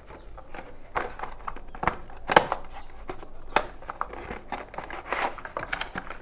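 Sealed earphone packaging being torn open: irregular crinkling, rustling and ripping, with the loudest sharp tear or snap about two and a half seconds in.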